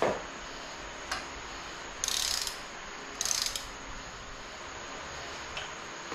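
Long-handled ratchet wrench tightening bolts on a Corvair engine: two short bursts of ratcheting about two and three seconds in, with a few single metal clicks between them.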